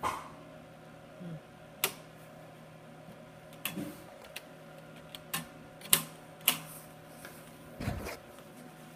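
Scattered sharp clicks and knocks, eight or so at uneven intervals, from the parts of a TV backlight module being handled and pried apart during disassembly.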